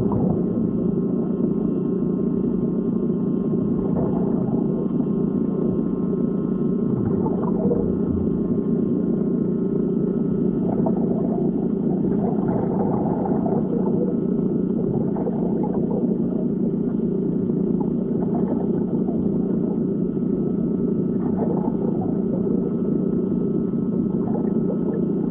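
Underwater ambience sound effect: a steady, muffled low rumble with no high sounds, and a few faint brief sounds rising out of it now and then.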